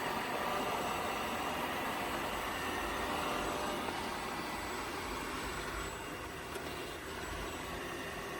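Robot vacuum cleaner running with a steady motor whir.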